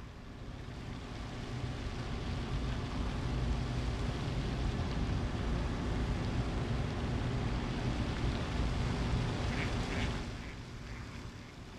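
A passing motor vehicle: a low engine rumble that builds over a couple of seconds, holds, and falls away about ten seconds in.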